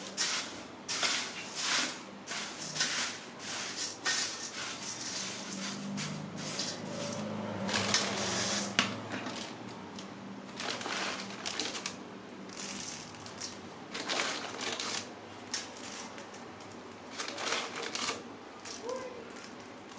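A spoon tossing a dry puffed rice mix in a stainless steel bowl: irregular crisp rustling and crunching of the puffed rice, with the spoon knocking and scraping against the metal.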